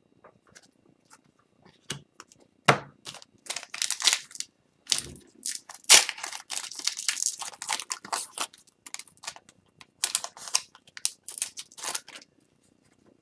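Foil wrapper of an Upper Deck hockey card pack crinkling and tearing open by hand, then the cards handled, with sharp clicks and rustles that come thickest in the middle and die down near the end.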